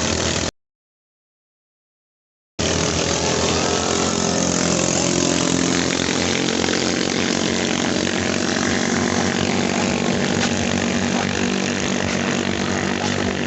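Small 220cc racing-boat engines running steadily in a boat drag race, a loud engine drone with many even tones over a hiss. The sound drops out to silence about half a second in and cuts back in abruptly after about two seconds.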